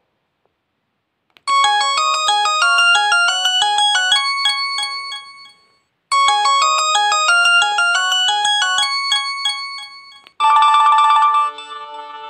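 LG GS101 mobile phone ringtone: a quick melody of many short chiming notes, played twice with a brief gap between. A different ringtone starts near the end.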